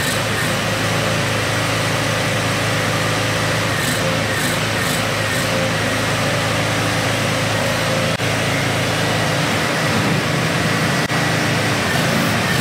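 Kawasaki FH491V 17 hp V-twin mower engine running at a steady idle, its level even throughout.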